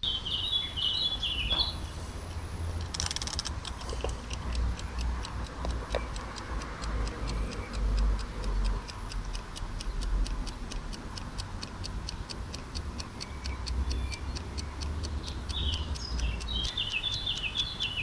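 Mechanical kitchen timer's clockwork ticking quickly and evenly as its dial turns. A bird chirps at the start and again near the end, over a low wind rumble on the microphone.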